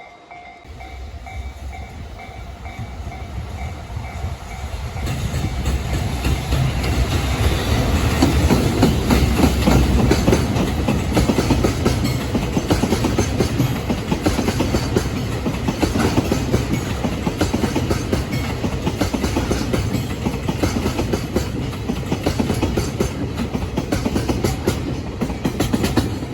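Freight train passing over rail joints at a level crossing: loud clickety-clack of wheels hitting the joints over a deep rumble. It builds over the first several seconds and stays loud.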